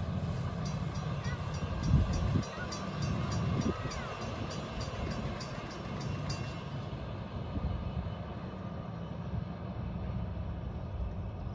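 Steady low rumble of a train running at track speed, with two heavy low thumps about two seconds in. Over it, a grade-crossing bell rings about three times a second and stops about six and a half seconds in.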